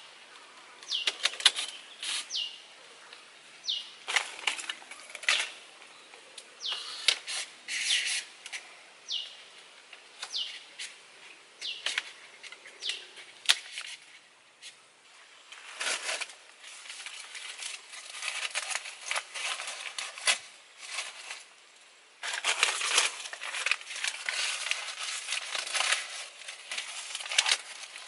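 Bamboo rods and cord rustling, tapping and creaking as they are handled and lashed onto a bamboo frame by hand. The rustling grows denser and more continuous about two-thirds of the way in, as leaves are worked onto the frame. Short high chirps falling in pitch repeat about once a second through the first half.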